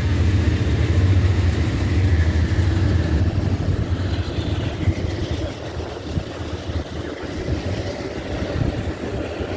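Train rolling past with a steady low rumble of wheels on rail, gradually fading from about three seconds in.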